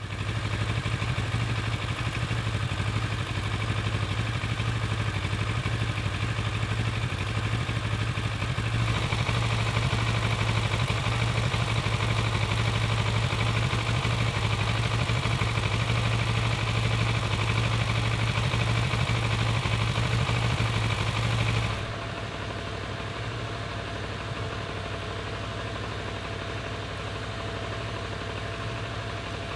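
Kawasaki ER-6n 650 cc parallel-twin motorcycle engine idling warm, with skips and an uneven beat that the owner suspects is a misfire. About two-thirds of the way through, the sound drops noticeably quieter and duller.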